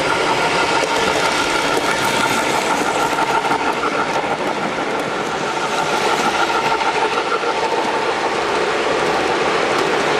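MTH O-gauge model of a DM&IR 2-8-8-4 Yellowstone steam locomotive running past on three-rail track, its wheels and the trailing coal hoppers clattering over the rails. A steady high tone carries on under the clatter and stops about seven and a half seconds in.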